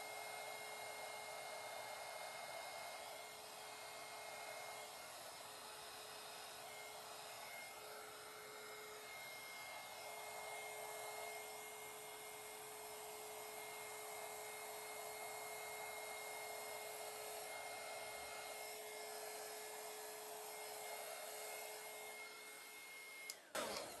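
Handheld heat gun running steadily, its fan blowing with a faint steady whine as it is fanned over wet epoxy resin to pop air bubbles. It cuts off suddenly near the end, with a couple of knocks.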